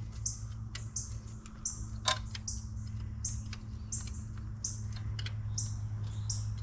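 A bird chirping over and over, about two short high chirps a second, over a steady low hum, with a couple of sharp clicks.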